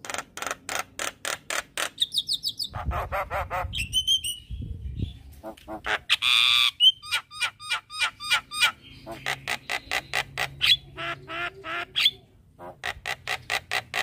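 Javan myna singing a varied chattering song: quick runs of sharp clicking notes and short trills, a harsh rasping note about six seconds in, and brief whistled notes, with a short pause near the end.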